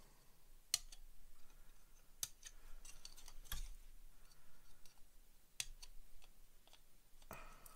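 Citadel sprue cutters snipping plastic kit parts off the sprue: several sharp snips a second or two apart.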